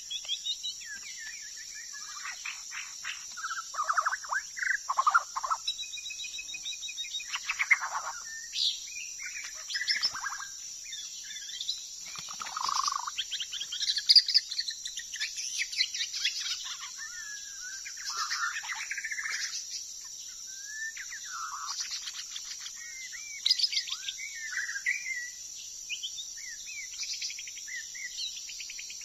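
White-rumped shama singing a long, varied run of whistled, warbling and rattling phrases, over a steady high insect drone.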